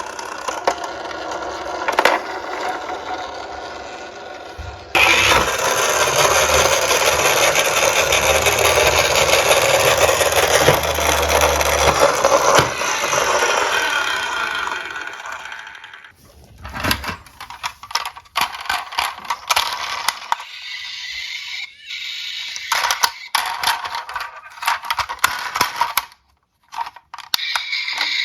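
Small diecast toy cars rolling down a slope track. A loud, steady rolling rumble starts about five seconds in and fades out some ten seconds later, followed by scattered clicks and knocks.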